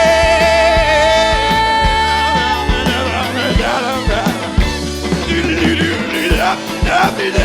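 Live rock band playing: voices hold a long sung note in harmony that ends within the first three seconds, while bass and drums keep the beat and the band plays on.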